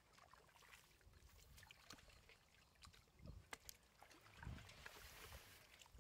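Faint splashing and sloshing of hands groping in shallow muddy water, with scattered small clicks and a few soft low thuds.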